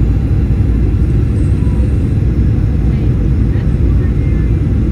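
Steady low rumble of a jet airliner's engines and rushing air, heard inside the cabin during the descent to land.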